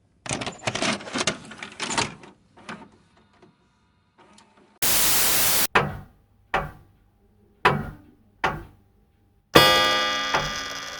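Sound-effect bangs and thuds: a rapid cluster of sharp impacts, then a short burst of hiss, then four or five separate knocks that each die away quickly. Near the end comes a loud ringing clang with many tones that fades over about a second and a half.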